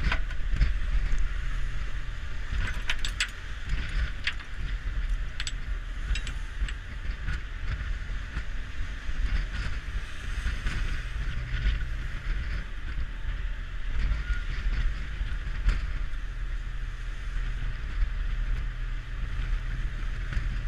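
Steady rumble and rushing of a ship under way at sea, with wind buffeting the microphone. Scattered sharp metallic clinks, mostly in the first few seconds, come from the rigging block, shackles and hose-line gear being handled.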